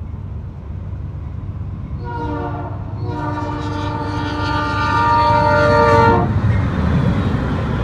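Norfolk Southern freight locomotive's multi-chime air horn sounding a short blast and then a long one of about three seconds over the steady rumble of the passing train. The long–short–long pattern, which begins just before, is the end of a grade-crossing signal.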